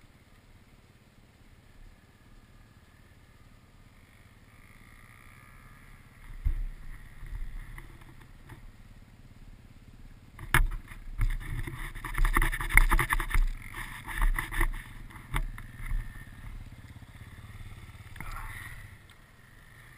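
Off-road dirt bike engines: quiet at first, then from about six seconds in a second dirt bike coming down the hill gets louder in uneven surges of throttle. It is loudest from about eleven to sixteen seconds in, then eases off.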